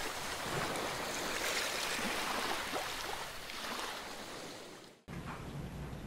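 Ocean surf washing on a beach, a steady hiss of waves with slow swells, played as a nature-sound recording; it fades out about five seconds in. After a brief gap, a recorded exam-room ambience with a steady low hum begins.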